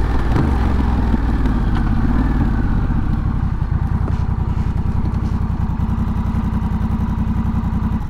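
Honda Rebel 1100's parallel-twin engine running through a Coffman's Shorty slip-on exhaust. It slows from riding and settles into a steady, evenly pulsing idle about three seconds in, then cuts off abruptly at the end.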